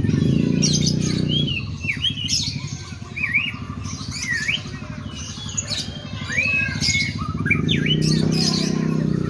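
White-rumped shama (murai batu) singing a run of short whistled phrases that sweep up and down, in a kutilang-like (sooty-headed bulbul) style. A low steady hum runs underneath, louder at the start and again near the end.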